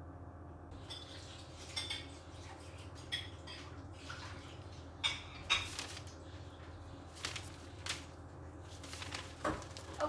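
White rabbit moving about on a floor of spread newspaper, its paws and nose rustling and crinkling the paper in a handful of short, scattered crackles.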